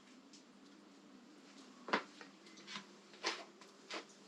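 A handful of short, light clicks and knocks from hand work removing a bolt on a motorcycle's front end, starting about two seconds in after a quiet stretch.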